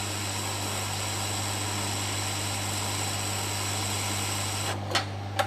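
Hot air rework station blowing on a circuit board to desolder a small surface-mount capacitor: a steady airy hiss over a low hum. The hiss cuts off near the end, and two light clicks follow.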